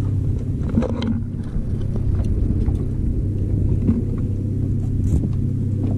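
Boat's outboard engine idling steadily, a low even hum, with a few light knocks from gear being handled on the boat.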